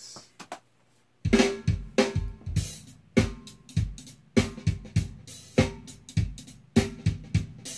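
Multitrack drum-kit recording played back over studio monitors with the room mics muted: only the close mics, a clean, up-front, punchy kit playing a steady beat. It starts about a second in, after a few faint clicks.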